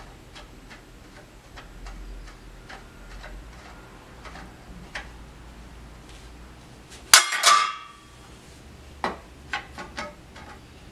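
Long threaded metal rods being screwed by hand into a flat-pack table frame: light, regular ticking as a rod turns in its socket, then one loud ringing metal clink about seven seconds in and a few sharper clicks near the end.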